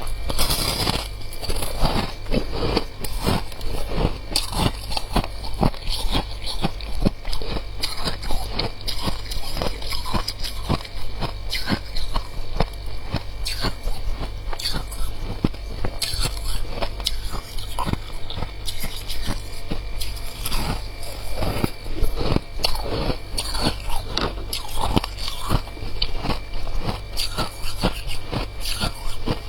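Close-up biting and chewing of freezer frost: many crisp, irregular crunches one after another, over a steady low hum.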